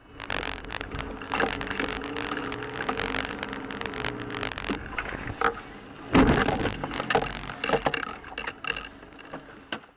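Car engine and road noise heard from inside the car, with scattered knocks and rattles and a heavy thump about six seconds in.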